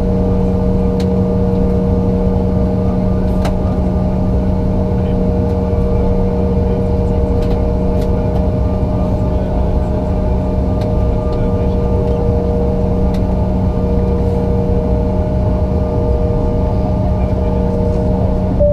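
Steady cabin drone of a Bombardier CRJ-900LR, its rear-mounted turbofan engines running at a constant pitch, with several steady humming tones over a low rumble.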